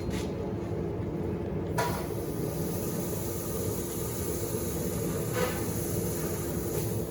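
Steady hum and rumble of running shop machinery, with a high hiss starting about two seconds in and a faint knock near the end.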